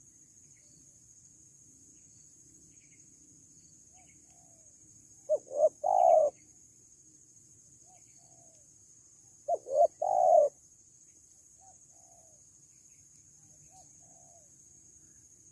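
Spotted dove cooing twice, about four seconds apart; each call is two short notes followed by a longer one.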